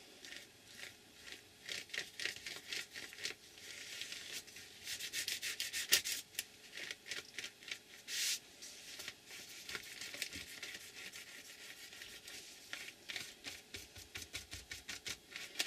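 Paintbrush stroking acrylic paint back and forth across a paper page, with a run of short, dry, scratchy brush strokes.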